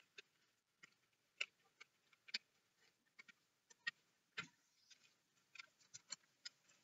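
Faint, irregular clicks and light taps of a sheet of paper being creased and folded by hand into a paper aeroplane, with one slightly heavier knock about four and a half seconds in.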